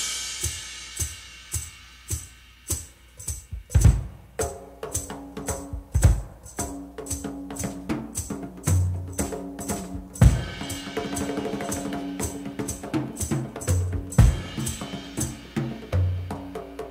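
Rock drum kit playing an unaccompanied drum solo. It opens on a fading cymbal crash, then runs fast strokes around the toms and snare, punctuated by heavy bass-drum hits and ringing low tom notes.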